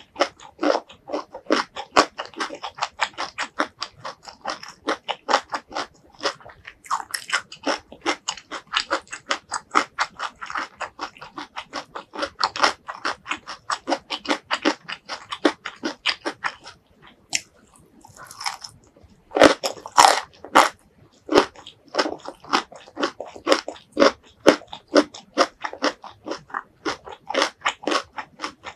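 Close-miked chewing and crunching of stir-fried vegetables: fast, even chewing strokes, with a short pause about two thirds of the way through and then several louder crunching bites.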